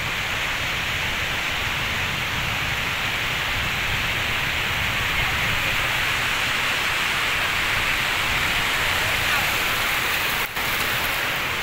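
Sea waves washing up a beach: a steady rushing of surf, cutting out for an instant about ten and a half seconds in.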